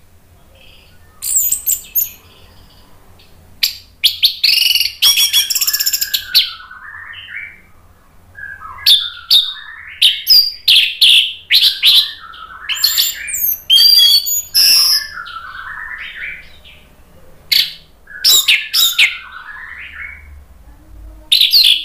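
Orange-headed thrush (anis merah) singing loudly: a string of song phrases that mix sharp high notes with lower warbling runs, broken by short pauses.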